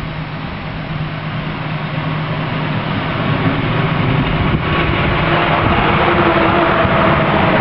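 A large motor vehicle driving past, its engine and road noise growing steadily louder.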